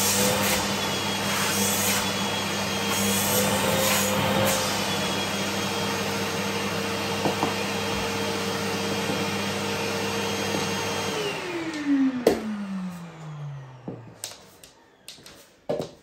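Canister vacuum cleaner running steadily, its pitch wavering slightly. About eleven seconds in the motor is switched off and winds down, falling in pitch over a few seconds, and a few sharp knocks and clicks follow.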